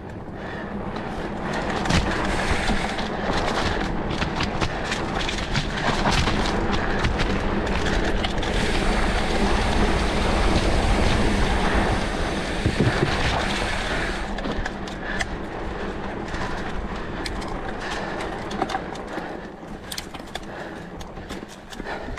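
Mountain bike descending a rough dirt trail: a steady rush of wind and tyre noise, with rattling knocks from the bike over bumps. It builds in the first couple of seconds and is loudest until about fourteen seconds in.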